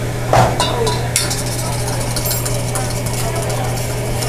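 A metal utensil clinking and scraping against a stainless steel bowl as a hibachi chef stirs in it, a few sharp clinks with the loudest about half a second in, over a steady low hum.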